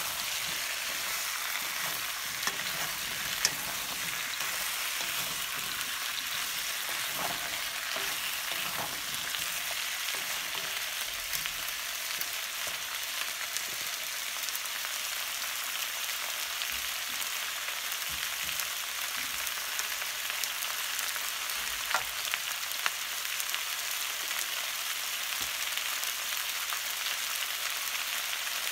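Potato, onion and carrot slices sizzling steadily as they stir-fry in a pan, with a few sharp clicks.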